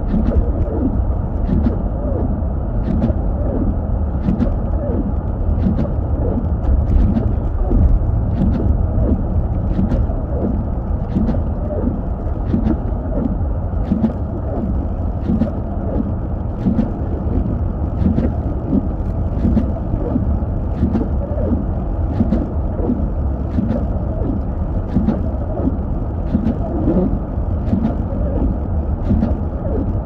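Steady low rumble of a car driving on a snow-covered road, heard from inside the cabin, with faint ticks roughly once a second.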